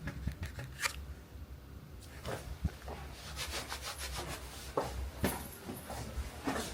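Rustling, rubbing and a scatter of small clicks, as of things being handled close by, over a low steady hum.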